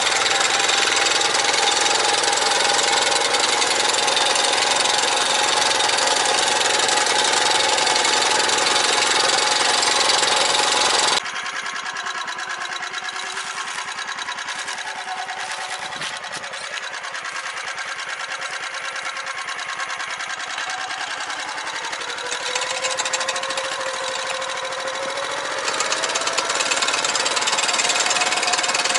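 Walk-behind tractor (motoblock) engine running under load as it pulls a potato digger through the soil. The engine sound drops suddenly in loudness about eleven seconds in, then rises in pitch and gets louder again near the end.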